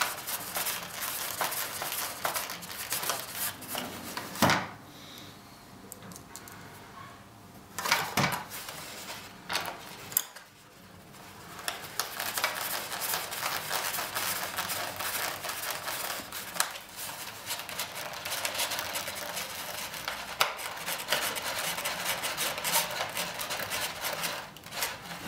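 Hand screwdriver turning self-tapping screws into a foam and plastic model plane wing: scratchy creaking and rubbing with small clicks, pausing briefly a couple of times.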